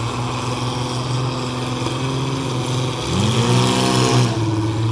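Engines of modified compact demolition derby cars running, with a steady hum. About three seconds in, one engine revs up, its pitch rising, then eases back down about a second later.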